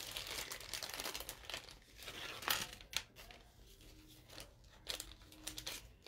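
Clear plastic packaging crinkling as a bracelet is taken out of it, with a few sharper crackles about two and a half and three seconds in.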